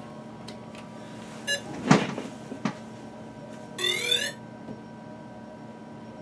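Yuneec Typhoon G quadcopter powering up. A short electronic beep comes about one and a half seconds in, followed by a knock as the drone is set down on the table. About four seconds in there is a half-second rising chirp of start-up tones, over a faint steady electronic whine.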